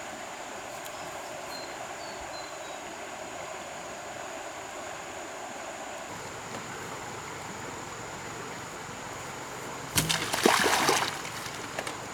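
Water running steadily, then a loud splash about ten seconds in that lasts about a second, with a smaller splash just before the end.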